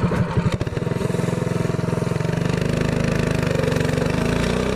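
Predator 212cc single-cylinder four-stroke engine on a minibike launching from low revs at full throttle. The slow putter of separate firing strokes runs together about a second in, and the note climbs steadily as the bike accelerates toward the speed where the stock governor caps it.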